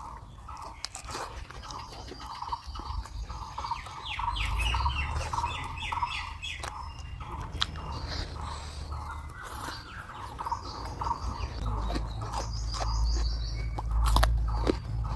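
Birds chirping, one repeating a short call several times a second throughout, with bursts of higher chirps now and then. Scattered clicks and a low rumble sit underneath.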